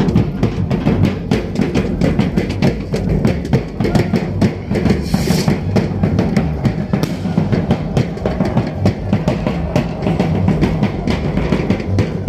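Drum-driven dance music with many close, rapid strikes and a strong low drum beat, going on without a break.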